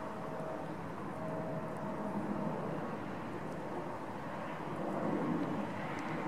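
Jet engine noise of a Boeing 777 airliner flying overhead: a steady rushing noise that grows a little louder about five seconds in.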